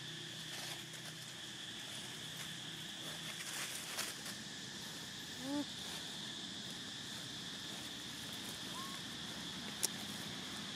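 Steady high drone of insects, with a brief pitched animal call about halfway through and a fainter one a few seconds later, plus a sharp click near the end.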